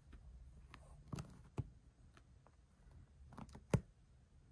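A few short, faint taps and scuffs very close to the microphone, the last one the loudest, over a low room hum.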